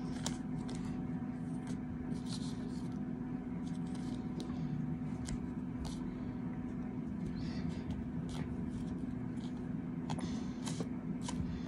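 Kinetic sand being scooped, packed and shaped by hand, making scattered soft scrapes and small clicks, over a steady low mechanical hum.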